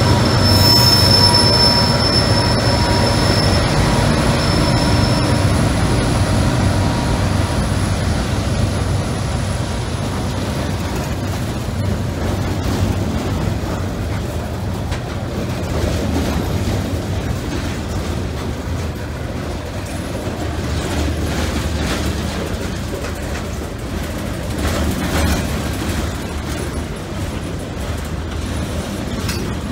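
CSX freight train rolling past close by. The trailing diesel locomotive's engine and a steady high wheel squeal fade over the first few seconds, leaving the continuous rumble and rattle of freight cars, with scattered knocks.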